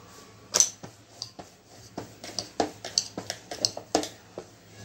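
Wooden rolling pin rolling out a flat sheet of dough on a stack of plates, giving irregular light knocks and clicks against the plate.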